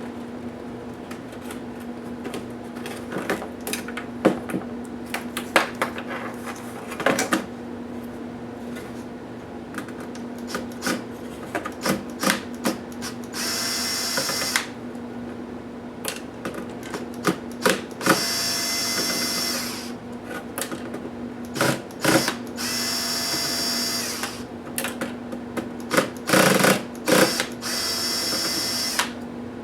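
Small electric screwdriver whining in four short runs of a second or two each, backing out laptop case screws. In between come sharp clicks and taps of plastic parts and screws being handled, over a steady low hum.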